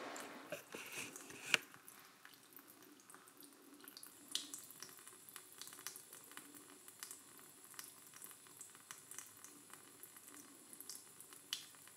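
Faint water from a tap dripping onto a steel knife blade in a sink, with scattered small clicks and taps.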